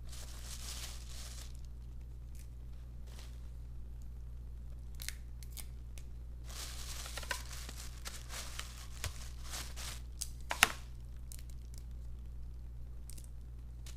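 Blue crab legs and shell being cracked and picked apart by hand and knife: scattered crackles, tearing and scraping, with one sharp knock about ten and a half seconds in, over a steady low hum.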